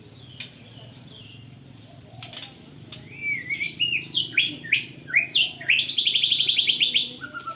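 White-rumped shama (murai batu) singing canary-style song it has learned from canaries. After a quiet start, a run of sharp whistled notes sliding up and down begins about three seconds in. Near the end comes a fast, even trill.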